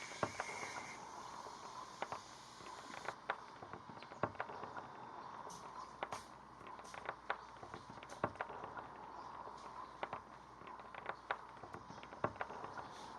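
Irregular sharp clicks and crackles, one to three a second, over a steady faint hiss.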